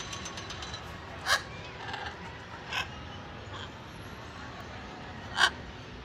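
Macaws giving short, harsh squawks: three separate calls, about one second in, near the middle (fainter) and near the end, over a low steady background murmur.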